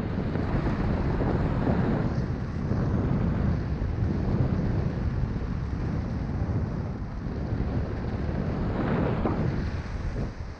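Airflow buffeting the microphone of a paraglider pilot in flight: a continuous low rumbling rush of wind that swells and eases.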